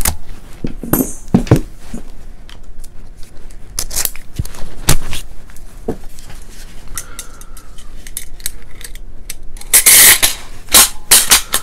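Scattered clicks and light metallic clinks of AR-style 9mm carbine parts being handled and fitted together by hand on a table, with a louder rustling clatter about ten seconds in.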